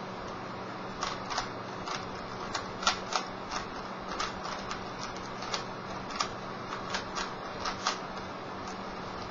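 Rubik's Cube being turned by hand during a solve: irregular plastic clicks as the layers are twisted, about two a second, stopping briefly near the end. A steady low hum runs underneath.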